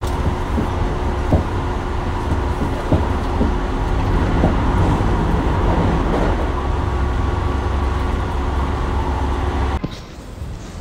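Passenger train running, heard from inside the carriage: a steady, loud rumble with a faint steady whine and a few short knocks. Near the end it cuts abruptly to quieter outdoor street ambience.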